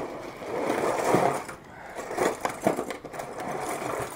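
A tangled mass of metal fishing tackle (hooks, snap clips and lures) jingling and rattling as it is handled and pulled up out of a cardboard shipping box, scraping against the cardboard. It comes in two spells with a short lull a little under two seconds in.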